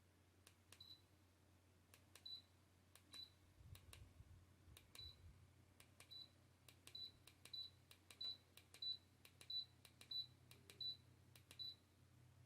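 Button presses on the MYCARBON MF07 desk fan's controls: about thirteen quick clicks, each with a short high beep from the fan acknowledging the command. The beeps come faster in the second half, over a faint low motor hum.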